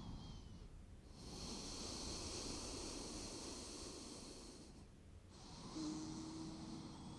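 Faint, slow, deep breathing through the nose: one long hissing breath starting about a second in and lasting over three seconds, then another starting near the end.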